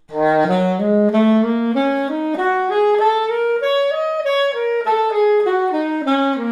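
Alto saxophone playing a major blues scale with swing feel, one note at a time up about two octaves and back down.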